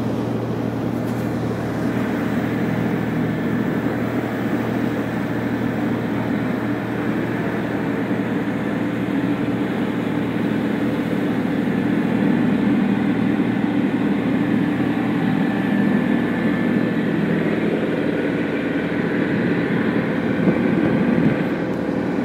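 A motorboat under way: the steady drone of its engine under the rush of the churning wake.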